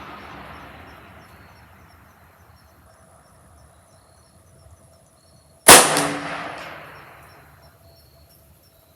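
A single shot from a Ruger Precision Rimfire .22 LR bolt-action rifle firing standard-velocity ammunition: one sharp report about two-thirds of the way in, with an echo dying away over about a second and a half.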